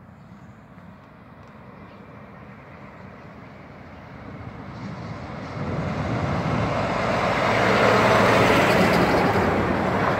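Semi-truck pulling a tall trailer driving past close by. Its low engine drone and tyre noise build from about four seconds in to a loud peak near eight seconds, then stay loud as the trailer rolls past.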